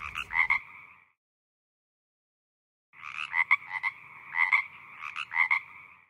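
A frog croaking in short pulsed bursts: one burst at the start, then, after about two seconds of silence, three more about a second apart.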